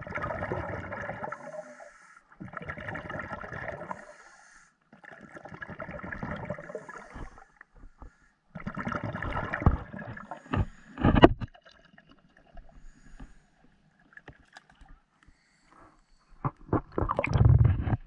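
Scuba diver breathing underwater through a regulator: four long rushes of exhaled bubbles about two to three seconds apart, with a few sharp knocks about eleven seconds in. Near the end a louder jumble of sloshing water comes as the diver reaches the surface.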